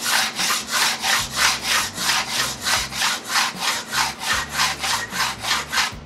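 A steel square's edge rubbed quickly back and forth along a steel tube lying on a steel table, scribing a faint centre line onto the tube. It makes an even scraping rhythm of about five strokes a second that stops just before the end.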